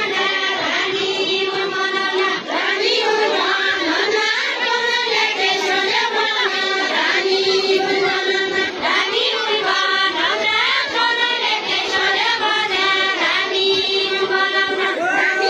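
A group of voices singing a Deuda folk song of far-western Nepal together, unaccompanied, with long held notes that recur every second or two.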